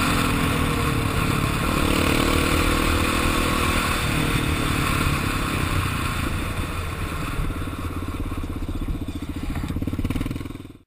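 Kawasaki KFX400 quad's single-cylinder four-stroke engine running under way on the road. The engine note drops lower after about six seconds, then the sound fades out near the end.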